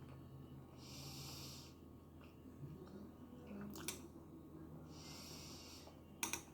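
A person eating tteokbokki breathing loudly through the nose twice, each breath a hiss of about a second, some four seconds apart. Two short sharp clicks come between and near the end.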